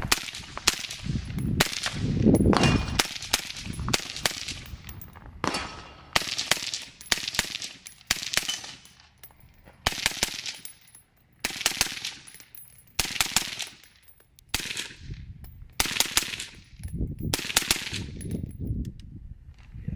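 Suppressed AR-15 rifle, a Triarc TSR 15 with a Surefire RC2 suppressor, firing a long string of single shots at about one to three a second, with a few brief pauses.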